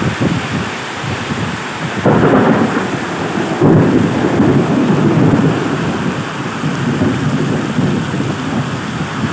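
Heavy tropical rainstorm: rain pouring down with deep rumbling surges, the loudest about two seconds and again nearly four seconds in.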